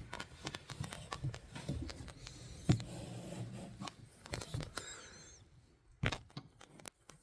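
Camera handling noise as it is moved and repositioned: rustling and scraping with scattered clicks and knocks, one sharp knock near the middle and two more near the end.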